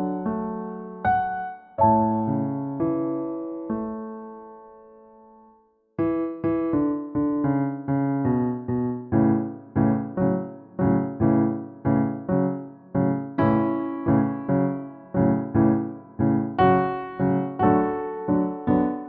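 Piano music: chords that ring and die away, fading to a moment of silence about six seconds in, then steady chords struck about twice a second.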